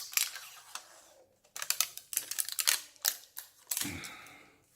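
Handling noise from a small plastic gadget: a rapid run of clicks, rattles and rustles, with a dull knock near the end.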